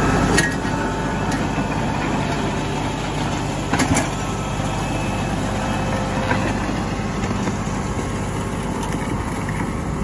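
New Holland compact tractor's diesel engine running steadily as it drags a box blade over a gravel driveway to level it, with a few sharp clicks near the start and about four seconds in.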